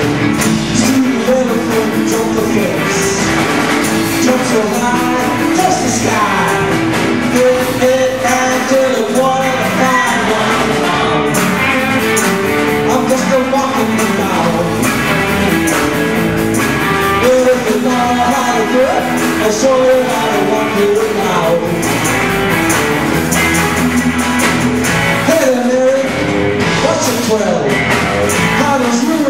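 Live rock band playing an up-tempo rhythm-and-blues rock song, with electric guitars, a drum kit and a lead singer.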